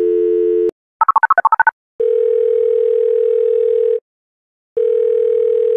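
Telephone call being placed. A steady dial tone stops, a quick run of touch-tone dialing beeps follows, and then the ringback tone gives two long rings of about two seconds each with a short gap between them.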